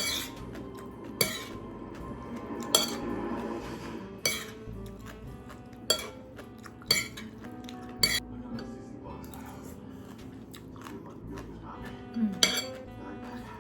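Utensils knocking and clinking against a bowl while papaya salad is mixed: about eight sharp knocks at uneven intervals, with a louder pair near the end.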